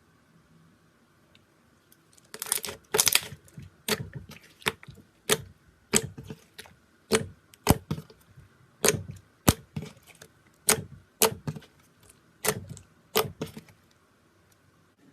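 Slime being worked by hand, giving a run of sharp clicking snaps, about one and a half a second, starting about two seconds in and stopping shortly before the end.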